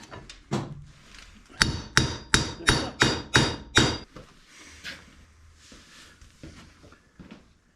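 Hammer striking metal during front suspension repair work. A few lighter knocks come first, then about a second and a half in a run of seven hard, ringing blows at about three a second.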